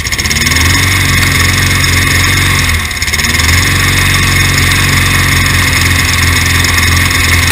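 3.5 hp Tecumseh single-cylinder lawnmower engine running on hydrogen-oxygen (HHO) gas from an electrolysis unit fed into its intake, with the blade turning. Its speed sags about three seconds in, then picks back up to a steady run.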